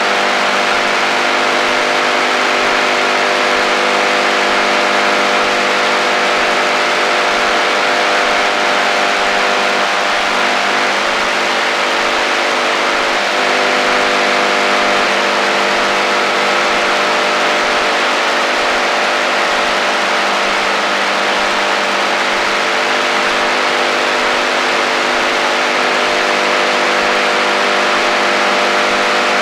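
AM radio receiver on the HF band giving out interference: a steady hiss with a buzzing drone of several steady tones on top, a few of them wavering briefly about halfway through.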